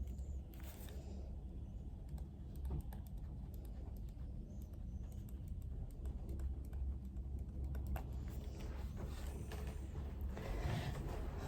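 Typing on a computer keyboard: scattered key clicks, busier near the end, over a low steady hum.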